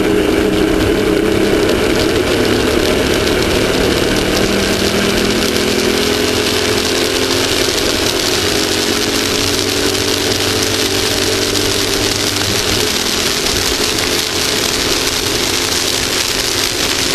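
Off-road race vehicle's engine running steadily, its pitch sinking slowly over several seconds, under a continuous rush of wind and terrain noise that grows stronger near the end.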